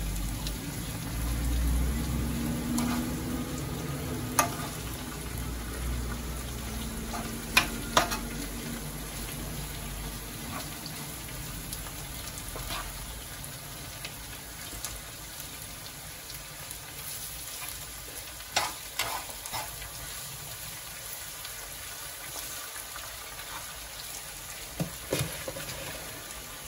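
Food sizzling in a frying pan on the stove, with a handful of sharp, brief knocks of kitchen utensils scattered through it.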